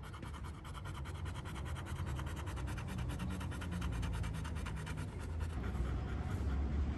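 Yellow Labrador retriever panting rapidly and evenly with its tongue out, over a low rumble.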